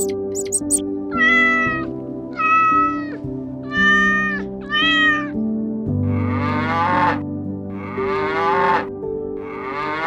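Four short, even-pitched cat-like meows in quick succession, then three longer, rougher calls about a second and a half apart, all over background music.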